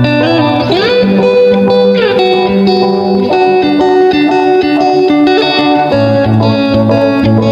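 Background music led by a guitar, playing sustained notes with sliding pitch bends about a second in and again about two seconds in.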